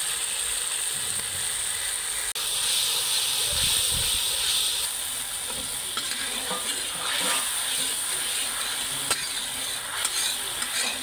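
Ground mustard-and-spice masala with turmeric and green chillies sizzling steadily in oil in a large metal kadhai, with a metal spatula scraping and stirring it in short clicks now and then in the latter half. This is the masala being fried (bhuna) before water goes in.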